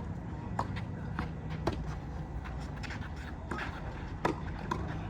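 Scattered sharp clicks and knocks, roughly one every half second to a second, over steady outdoor background noise.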